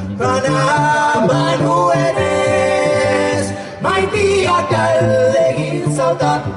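A mixed a cappella vocal group of four singing into microphones in close harmony, with a low sung bass line beneath the held chords and a short break about four seconds in.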